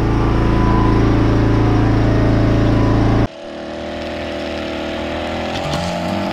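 A petrol lawn mower engine running steadily, loud and close. About three seconds in it cuts off abruptly to the quieter, higher drone of a string trimmer running at a distance, and music starts near the end.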